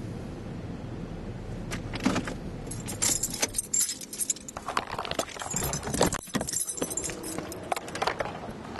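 Car keys jingling and clicking as they are handled at the steering column, a dense run of small metallic rattles starting about two seconds in. A steady low car-cabin hum runs under the first couple of seconds.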